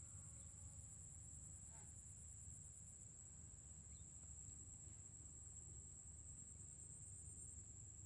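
Near silence: faint outdoor ambience with a thin, steady, high-pitched insect trill, and a single faint chirp about two seconds in.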